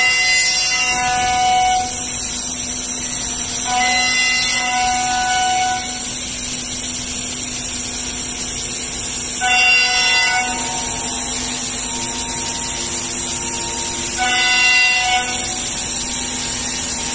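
Pade Velox T2+2 five-axis CNC router machining wood: a steady spindle whine, with a louder, many-toned cutting sound four times as the cutter bites into the wood.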